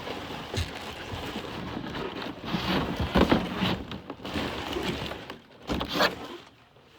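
Handling of a cardboard shipping case: rustling and scraping, with a few louder knocks about three seconds in and again near six seconds.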